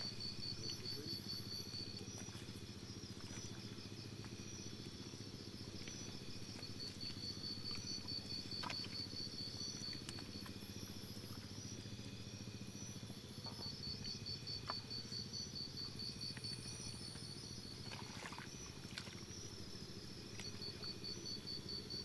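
Insects chirping in rapid, high-pitched pulse trains that come and go every few seconds, over a steady low hum.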